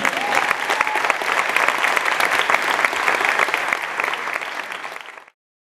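Applause, many hands clapping as a song ends, stopping abruptly about five seconds in.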